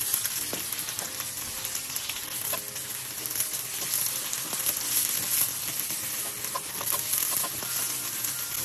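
Sliced red onions and garlic sizzling in hot oil in a stainless steel wok, stirred with a spatula that scrapes and clicks against the pan now and then.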